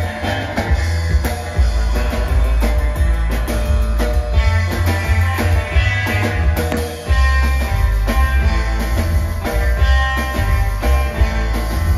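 Live surf rock instrumental: a small band with electric guitar lead, upright bass and drum kit, playing steadily. The bass and drums drop out briefly about halfway through, then come back in.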